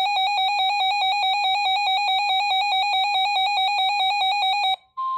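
A weather radio receiver's alert alarm sounding for an incoming severe thunderstorm warning: a shrill electronic tone pulsing very rapidly and steadily. It cuts off near the end, and a steady single tone begins, the broadcast's warning alarm tone coming through.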